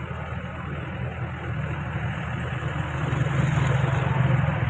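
Backhoe's diesel engine running, rising in level about three seconds in and easing back near the end.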